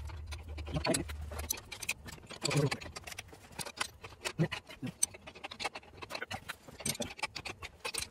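Metal spanners clicking and tapping on the nuts and bolts of a Bell & Gossett 100 series circulator pump's iron flange as they are turned, in irregular sharp clicks.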